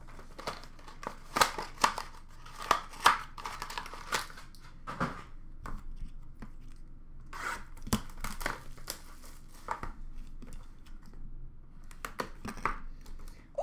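Trading-card packaging being handled and opened: a run of sharp clicks, rustling and tearing of plastic wrap and cardboard.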